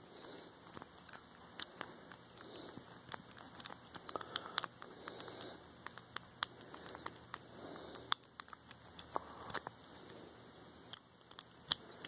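Soft, irregular clicks and scrapes of a steel lock pick working the five brass pin tumblers of a stainless-steel padlock under a tension wrench, over the faint rustle of fingers holding the lock.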